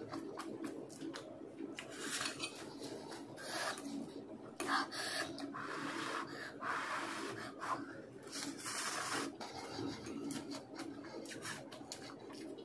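Close-up eating sounds from a man eating masala Maggi instant noodles. There are several drawn-out airy bursts as he blows on forkfuls and slurps the strands in, with chewing and small clicks of the fork against the glass bowl.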